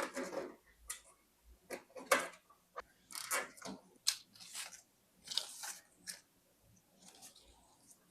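Irregular clicks and rustles of plastic zip ties and cables being handled and fastened, thinning out near the end.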